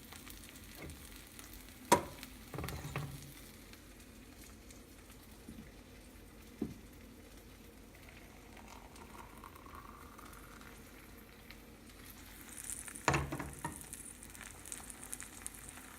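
Food frying in a pan with a steady sizzle, broken by a few sharp knocks and clatters, the loudest about two seconds in and another cluster near the end.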